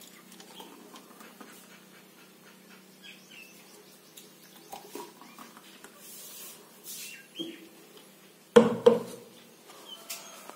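Thick papaya juice poured from a plastic blender jar into steel tumblers, with faint clinks and small high chirps, then one louder knock near the end.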